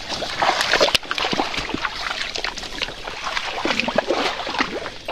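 Footsteps along a wet, muddy trail and bodies brushing through leaves and undergrowth: a run of irregular scuffs, rustles and knocks with no steady rhythm.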